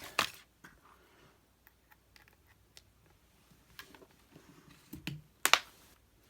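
Small clicks and handling noises of a USB-C cable connector being plugged into a MacBook's port, with the loudest sharp click about five and a half seconds in.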